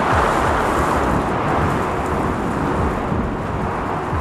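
Heavy storm rain and wind beating on a yurt's roof and dome skylight, heard from inside as a loud, steady rush.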